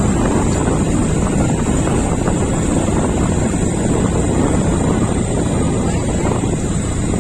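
A vehicle travelling on a road, with steady engine and road noise and wind buffeting the microphone.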